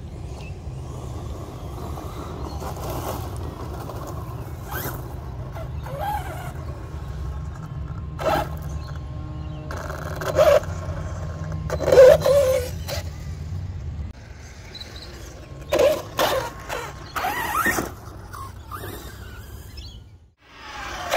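Arrma Limitless 6S brushless electric RC car making several quick runs on gravel and grass: short bursts of motor whine that rise and fall in pitch as it accelerates and passes, with tyres scrabbling on the gravel. A steady low rumble lies underneath until about two-thirds of the way through.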